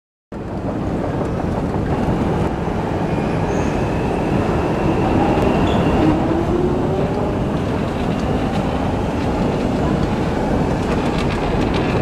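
London Underground Jubilee line train in the station: a steady, loud rumble with faint motor whines that slide in pitch.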